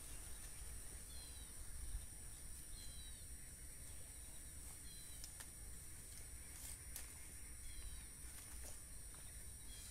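A bird repeating a short, falling two-note chirp about every one and a half to two seconds, faint, over a steady thin high-pitched tone and a few soft clicks.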